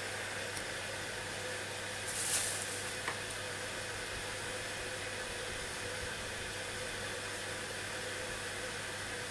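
Steady background hiss with a low hum, like a running fan or air conditioner, with a brief rustle about two seconds in and a single click just after three seconds.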